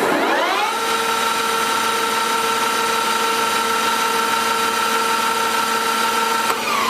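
Clausing Colchester 25-inch engine lathe with a 30 hp main drive, its spindle run in reverse at top speed: the gear whine rises as it spins up in the first second, holds steady, then falls as it starts to slow near the end.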